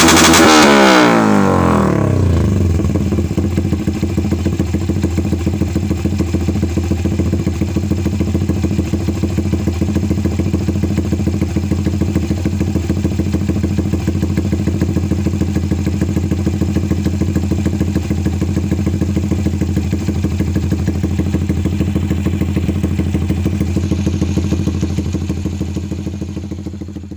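Motorcycle engine coming down from high revs in the first two seconds, then idling steadily, fading out near the end.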